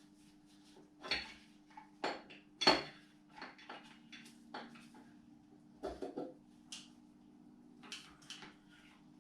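Light metallic taps and clinks, about a dozen at irregular intervals, the loudest a sharp clink nearly three seconds in: a tool tapping stuck bearing shells out of the Mini R53 W11 engine's parts. A faint steady hum runs underneath.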